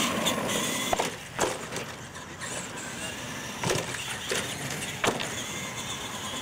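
Radio-controlled monster truck driving on concrete and over wooden ramps, with several sharp knocks as its wheels hit and land on the wood.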